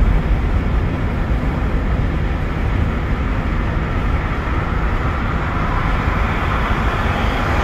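Steady road noise of a car in motion: a low rumble under a hiss that grows a little louder near the end.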